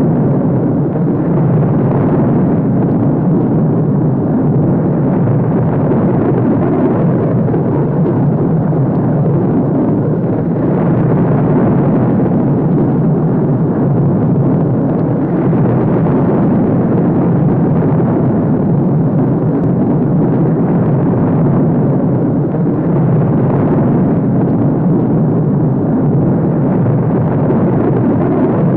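Star Wars Star Destroyer exterior engine sound effect: a steady, loud, low-pitched engine noise with no breaks or changes.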